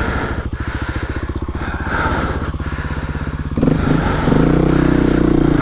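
Kawasaki KLX250S single-cylinder four-stroke engine chugging at low revs while the bike eases down a rock ledge. About three and a half seconds in, the throttle opens and the engine note jumps up and gets louder.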